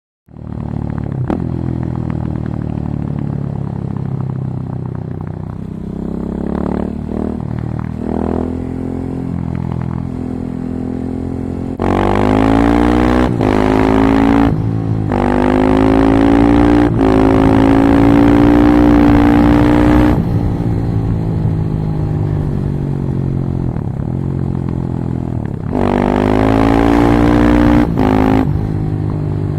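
Single-cylinder engine of a 2016 Husqvarna 701 supermoto with an Akrapovič silencer and an open airbox, running steadily, then accelerating hard from about twelve seconds in, its pitch rising and dropping at several gear changes, with a second pull near the end.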